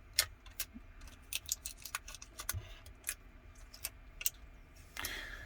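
Irregular light clicks and ticks from handling a replacement iPhone 11 Pro screen while its protective film is peeled off.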